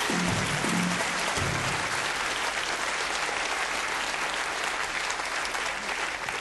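Lecture audience applauding steadily, starting to thin out near the end.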